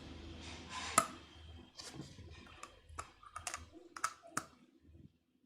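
Faint, irregular small clicks and ticks, about a dozen, from the mouth as a ballpoint pen held between the front teeth rolls while the jaw slides sideways.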